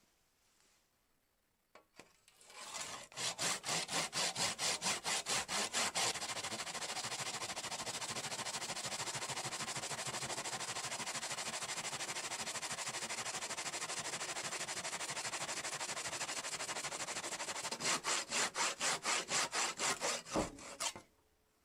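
Hand saw cutting through a wooden board, the blade running in a miter guide. The starting strokes come at about four a second and blur into fast, continuous sawing, then turn back into separate strokes near the end, with a low thud just before the sawing stops.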